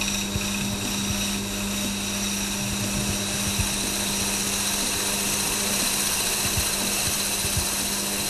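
Teknatool NOVA woodturning lathe running with a steady motor hum while a high-speed steel cutter on the top-slide tool post turns a taper, the cutting noise growing a little brighter about three seconds in.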